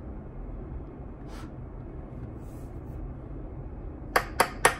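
A makeup brush tapped against the edge of an eyeshadow palette to knock off excess powder: about four quick, sharp clicks near the end. A steady low background rumble runs underneath.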